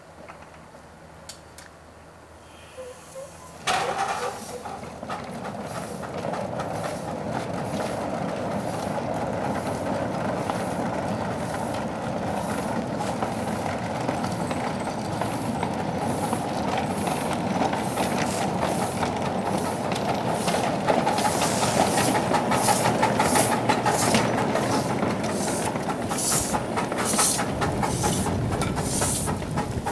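Small live-steam locomotive getting under way with its train: a sudden burst of steam noise about four seconds in, then a steady run of steam hiss and rhythmic exhaust beats that grows louder and sharper as it comes past.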